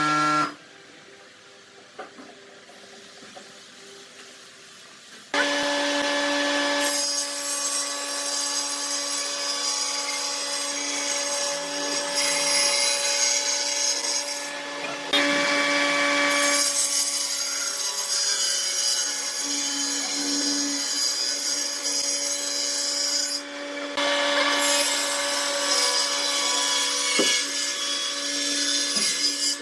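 A power tool cutting wood. It starts about five seconds in and runs with a steady motor hum and cutting noise, easing off briefly twice before carrying on.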